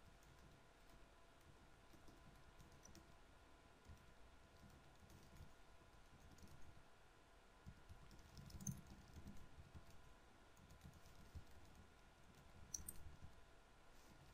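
Near silence with faint, scattered clicks of a computer keyboard being typed on, a few clustered a little past halfway and again near the end.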